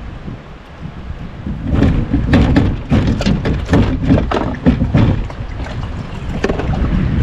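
A smallmouth bass splashing and thrashing as it is scooped from the water in a landing net: a few seconds of irregular splashes starting about two seconds in, over wind rumble on the microphone.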